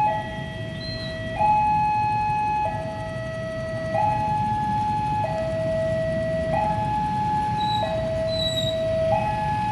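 Two-tone hi-lo siren alternating evenly between a higher and a lower note, each held about a second and a quarter.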